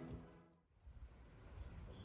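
Near silence: the last of a ringing chime fades out, a moment of dead silence follows, then only faint background music.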